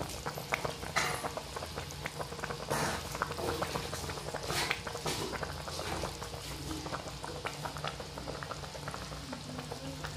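Mustard fish curry boiling in a pan: the gravy bubbling steadily, with many small irregular pops as bubbles burst.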